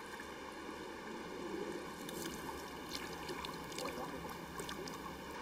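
Faint splashing of river water as a fish is held in the shallows by hand and let go, with a few small splashes in the second half over a steady hiss.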